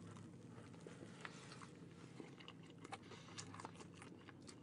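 Faint close-up chewing of a mouthful of toasted sandwich with roast beef and corned beef: scattered soft crunches and wet clicks, a few a second, over a low steady hum.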